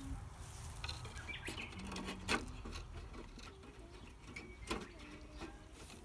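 Birds chirping in short calls, with a few sharp clicks or knocks, the loudest about two seconds in and another near five seconds.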